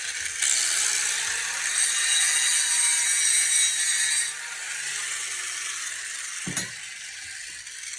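Power grinder grinding a small metal part, hardest for the first four seconds or so, then lighter, with a single click about six and a half seconds in.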